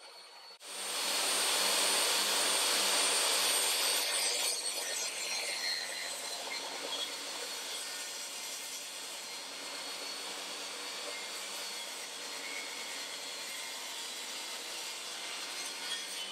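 DeWALT DWE7485 table saw ripping a board of scrap softwood, its blade cutting along the length of the piece. The sound comes in suddenly about half a second in, is loudest for the next few seconds, then settles into a steadier cutting noise as the board is fed through.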